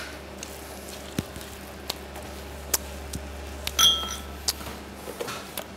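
Metal spoon scraping and clinking against a stainless steel mixing bowl while scooping sticky pudding mixture: scattered light clicks, and one brief metallic ring about four seconds in.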